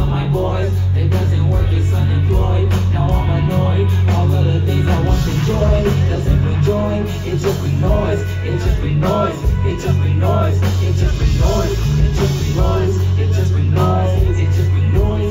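Loud live band music through the venue's PA, heard from within the crowd: a heavy, steady bass, drums and a sung vocal line.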